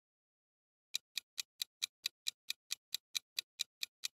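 Clock-style ticking of a quiz countdown-timer sound effect, short even ticks at about four or five a second, starting about a second in.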